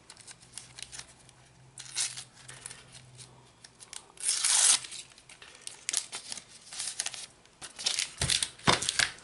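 A foil sticker packet being torn open by hand in several short rips with crinkling, the longest and loudest about four seconds in, then the stickers pulled out and handled. There are two short knocks near the end.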